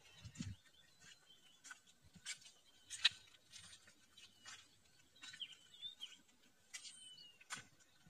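Faint chirps and short whistled calls of birds, with many brief sharp notes scattered throughout; the loudest comes about three seconds in.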